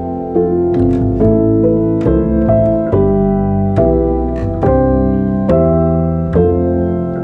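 Background music: piano playing a slow melody of sustained chords, a new note or chord struck about every half second to second.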